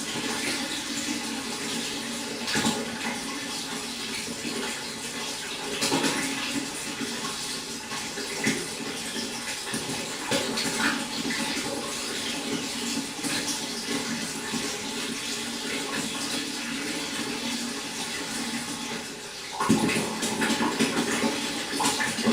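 Water running and splashing steadily in a pond, with a few brief louder splashes and a stronger surge near the end.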